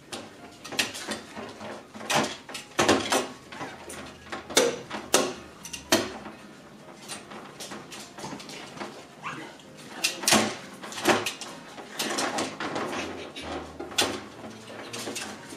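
Poodle puppies playing: irregular short knocks and scuffles as they tumble over foam mats, with occasional puppy whimpers.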